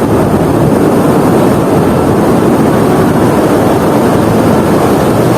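Strong wind blowing over the microphone, a loud, steady, low rumble, mixed with the sound of surf breaking on the beach.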